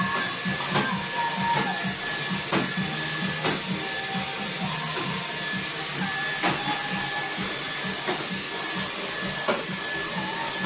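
Dyson cordless stick vacuum running steadily on a tiled floor, with a constant high-pitched whine from its motor and occasional clicks and knocks as the floor head is pushed around.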